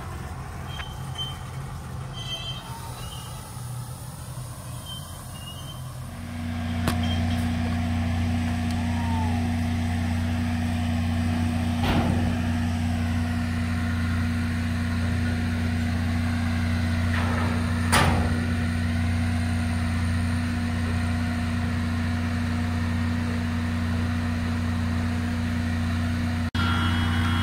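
A diesel engine on a slow-moving rail work train running with a steady low hum that gets louder about six seconds in, broken by a few sharp metallic knocks.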